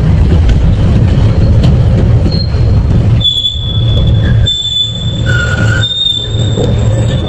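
Double-shaft shredder crunching a red clay brick between its hooked cutter blades, with a loud low rumble. About three seconds in the crushing thins out and a steady high squeal comes and goes in several stretches as the blades keep turning.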